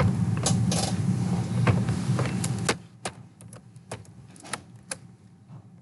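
Computer keyboard typing: irregular key clicks, a few strokes at a time. A low rumbling noise runs underneath and cuts off suddenly about two and a half seconds in.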